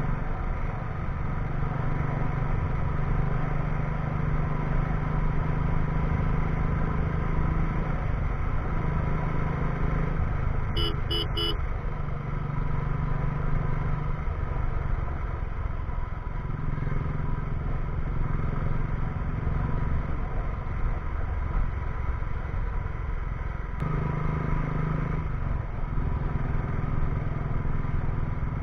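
Motorcycle engine running at road speed, heard from the rider's seat with wind rushing over the microphone. Its note dips and picks back up several times, and a quick triple beep sounds about eleven seconds in.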